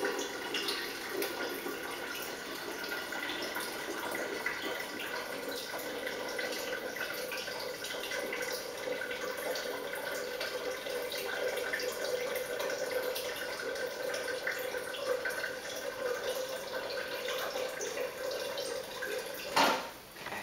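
Water from a refrigerator door dispenser running steadily into a plastic jug, stopping with a sharp knock just before the end.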